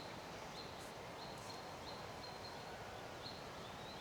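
Faint outdoor background noise, a steady hiss, with a few short, faint high chirps now and then.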